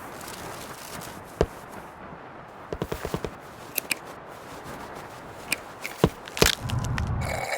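Scattered footsteps and taps over a steady hiss, with a quick run of taps about three seconds in and a heavier low thud near the end.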